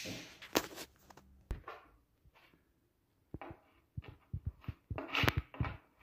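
Plastic putty spatula scraping and tapping on a veneered MDF furniture top as wood filler is pressed over sunk screw heads: a few scattered clicks, then a quicker run of short scrapes and taps in the last three seconds.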